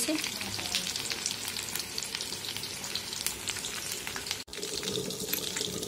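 Batter-coated chicken leg pieces deep-frying in oil in a steel kadai on a low flame: a steady sizzle full of fine crackling pops. The sound cuts out for an instant about four and a half seconds in.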